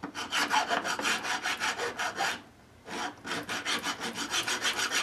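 Hand file rasping back and forth across the cut end of a small metal piece clamped in a filing jig, squaring the end. Quick short strokes in two runs with a brief pause about halfway.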